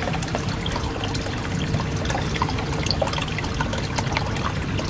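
Hydroponic nutrient water trickling and splashing steadily from a pipe into a plastic reservoir tank, with many small droplet ticks.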